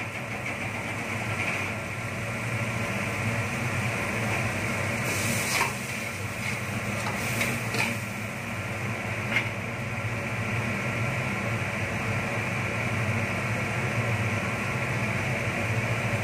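A steady low mechanical hum runs throughout, with three sharp metal clinks of a steel ladle against the iron kadai about five and a half, eight and nine seconds in.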